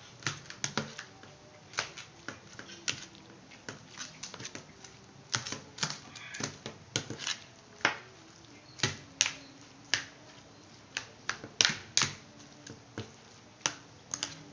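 A hand mixing a chopped eggplant, tomato and onion salad in a plastic tray: irregular sharp clicks and taps, a few a second, as the hand and the wet vegetables knock against the tray.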